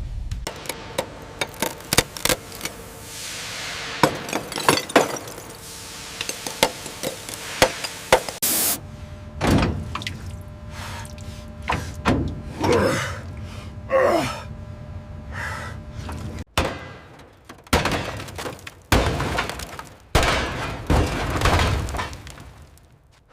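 A series of sharp knocks and cracks with stretches of scraping between them, and a few wavering squeals near the middle.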